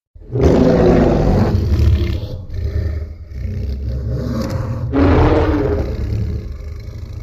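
Kaiju monster roar sound effect: a loud roar that starts abruptly over a deep rumble, eases off after about two seconds, and swells into a second roar about five seconds in.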